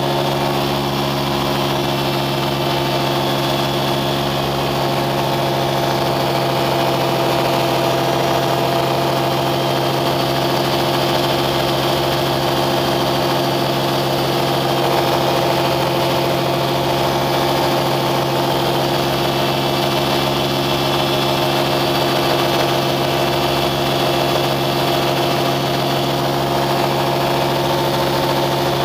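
An engine running steadily at a constant speed, giving an even drone that holds the same pitch throughout.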